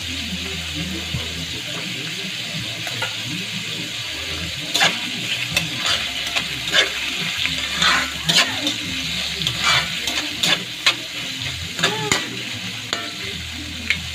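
Beef skin, onions and ginger sizzling in a metal wok, with a slotted metal spatula scraping and clacking against the pan from about five seconds in as the pieces are stir-fried.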